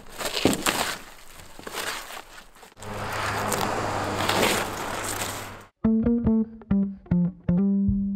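Crinkling and knocking of roofing debris being handled, then a steady noise with a low hum for about three seconds. Nearly six seconds in this cuts off suddenly into music of plucked bass and guitar notes.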